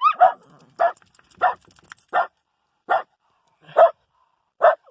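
Dogs barking in short, sharp, evenly spaced barks, about seven in all, a little under a second apart: alert barking at a crow they have spotted.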